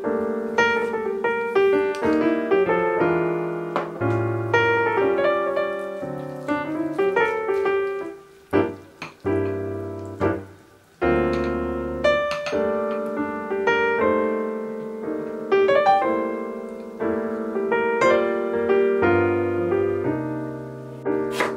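Background piano music, a gentle tune over chords, with a brief quieter lull about halfway through.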